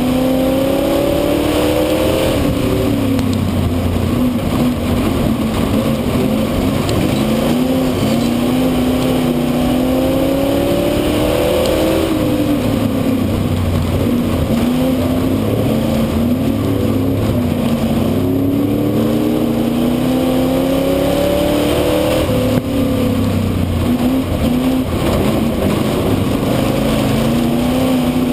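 Ford V8 speedway saloon car engine at racing speed, heard onboard: the engine note climbs for a few seconds under throttle, then drops as the driver lifts for the turns, over and over, with a steady roar of wind and the car around it.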